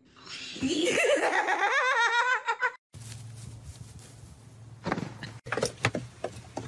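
A person laughing hard: a loud, warbling run of laughs that cuts off abruptly about three seconds in. After that come a lower steady hum and a few short knocks.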